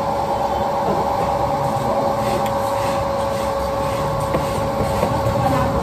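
Steady machine hum with a constant whining tone over a low rumble, running evenly throughout.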